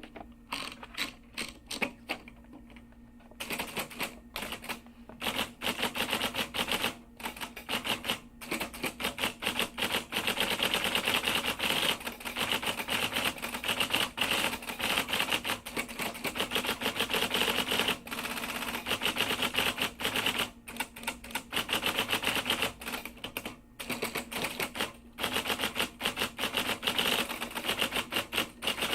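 Typewriter keys struck in fast runs of sharp clicks, typing out a letter. The first few seconds are sparser and quieter, then the typing runs fast and steady with a few brief pauses.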